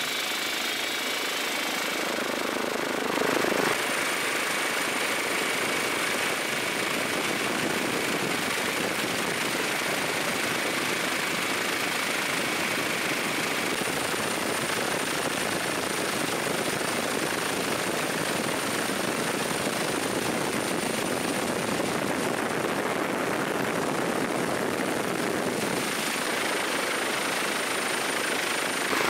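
Helicopter noise heard on board: a steady rotor and engine rush, with a thin, steady high whine running through most of it.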